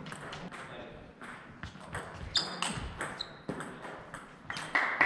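Table tennis doubles rally: the ball clicking sharply off rackets and the table in quick, irregular succession.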